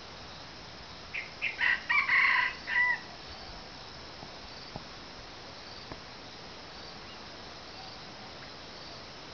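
A red junglefowl rooster crows once, about a second in: a short crow of a few broken notes lasting under two seconds. A steady chirring of insects runs underneath.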